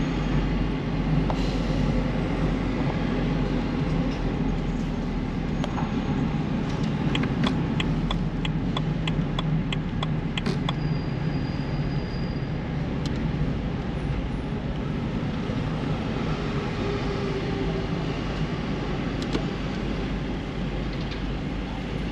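Car driving in city traffic: a steady low rumble of engine and road noise. In the middle comes a run of even ticks, about two a second, lasting a few seconds.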